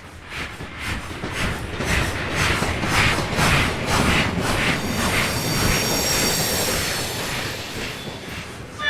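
Steam locomotive working past, its exhaust chuffing about twice a second and growing louder over the first few seconds. About halfway through, a high, steady squeal joins the chuffing.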